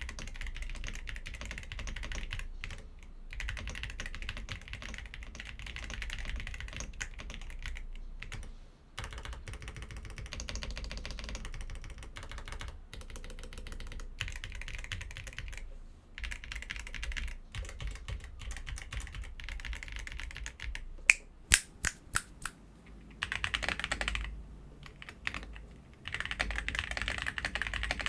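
Typing on a Vortex Mono 87 V2 TKL plastic-cased mechanical keyboard with stock, factory-lubed switches: quick runs of key clacks broken by short pauses. About three-quarters of the way in come a few separate, louder single key strikes.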